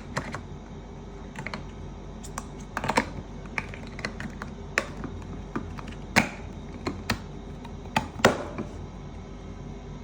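Irregular small plastic clicks and taps of a Philips IntelliVue MX40 patient monitor and its battery being handled, with a couple of louder snaps about six and eight seconds in; the clicking stops near the end.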